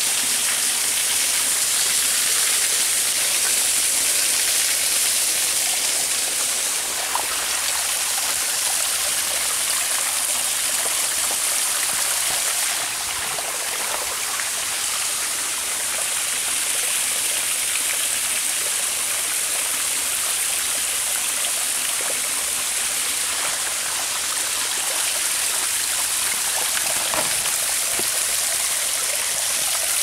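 Small waterfall: thin streams of water falling over stepped rock ledges and splashing into a shallow pool, a steady rush of water.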